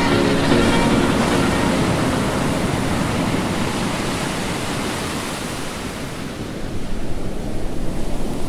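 Ocean surf washing onto a beach: a steady rushing hiss that swells more unevenly near the end. The last notes of background music fade out in the first second.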